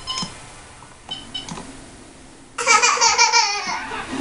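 A few short electronic beeps at the start and again about a second in, then a toddler's loud high-pitched squeal and giggle lasting about a second, starting about two and a half seconds in.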